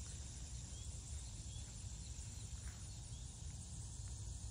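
Outdoor summer ambience: a steady high chorus of crickets and other insects over a low, even rumble.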